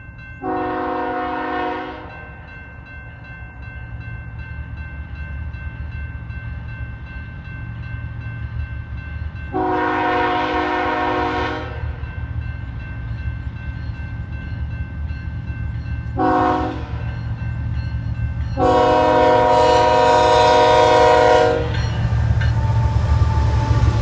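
A Nathan Airchime K5HL locomotive horn sounds the grade-crossing signal: long, long, short, long, a chord of several tones. Under it runs a low diesel locomotive rumble that grows louder near the end as the units arrive.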